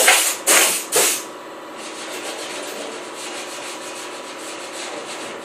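Short loud hissing blasts from a compressed-air tool worked against the bare sheet-metal underbody of a car shell, three of them ending about a second in, then a quieter steady rubbing noise.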